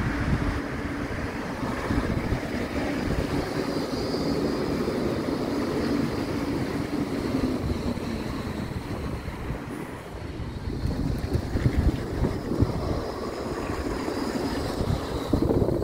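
Bombardier Flexity 2 tram running past close by on street track, a steady rumble of wheels on rail with a low motor hum that sinks slightly in pitch partway through.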